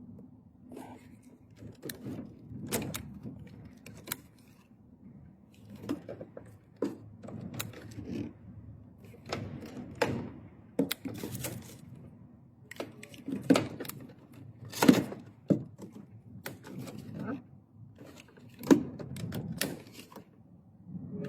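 Irregular knocks, clicks and clatter of hands and tools working on wiring and fittings, with a few louder knocks in the second half.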